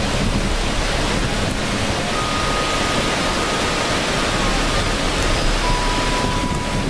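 Rushing water: a steady, dense, even hiss of falling water with no breaks.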